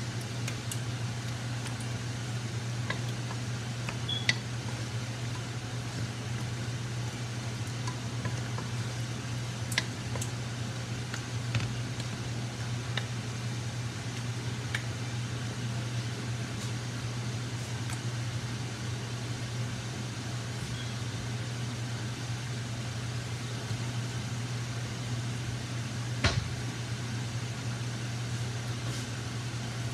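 Steady hum of a range-hood fan over a low sizzle of oxtail cooking in a metal pan, with a few sharp clicks as a wooden spoon strikes the pan while the meat is tossed.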